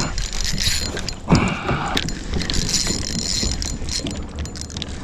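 Pedal drive of a Hobie Mirage Passport kayak being pedalled, a steady mechanical clicking and creaking with water noise, and one louder thump about a second and a half in.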